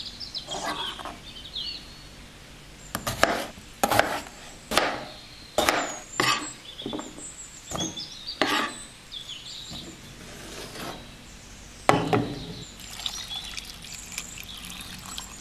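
Chef's knife chopping raw potatoes on a plastic cutting board: a series of sharp, irregular knocks, with one hard knock about three-quarters through. Near the end, cold water is poured over the cubed potatoes in a saucepan.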